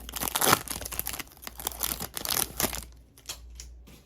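Plastic wrapper of a trading card pack crinkling and tearing as it is ripped open, then a few light clicks as the cards are handled.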